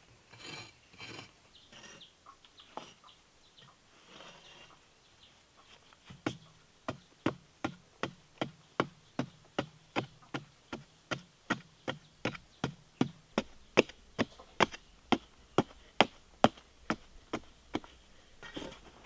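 Hand hoe digging into hard-packed dirt. A few seconds of loose scraping come first, then from about six seconds in a steady run of sharp chops, about two and a half a second, each strike biting into the ground.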